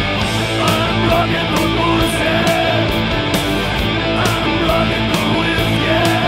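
Heavy rock band playing loud and steady: distorted electric guitars, bass and drums, with cymbals striking at regular intervals and a bending melodic guitar line over the top.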